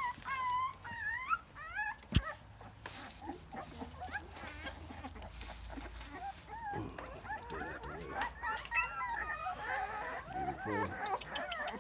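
Two-and-a-half-week-old Rottweiler puppies whimpering and squeaking in short, high, wavering cries, with one sharp knock about two seconds in. The cries thin out in the middle and pick up again near the end.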